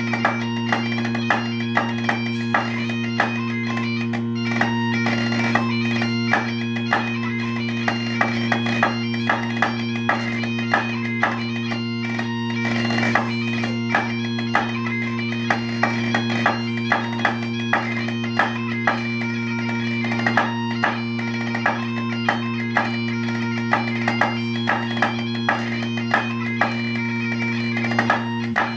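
Great Highland bagpipe playing a tune over its steady drones, accompanied by snare drum sticks striking a rubber practice pad in a crisp, rhythmic pattern.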